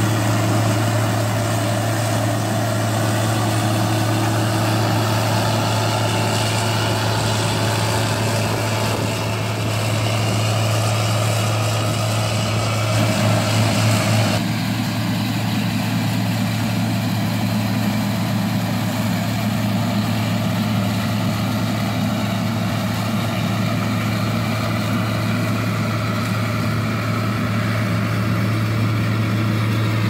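Case IH 2188 combine harvesting soybeans: its diesel engine and threshing machinery running with a steady low hum. The sound changes abruptly about halfway through.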